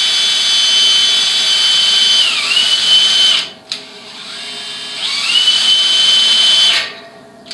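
Cordless drill boring into the steel wall of a barrel stove. The motor's high whine holds steady, dips in pitch briefly under load about two and a half seconds in, and stops just after three seconds. After a knock and a pause it starts again about five seconds in and runs until near the end. The bit is bent and not very sharp.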